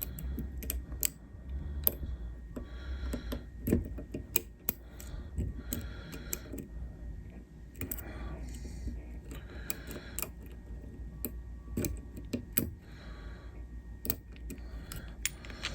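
Lock picks clicking and scraping against the pins of a dimple cam lock, an irregular patter of small sharp metal ticks as pins are probed and set. Softer rustles recur every couple of seconds.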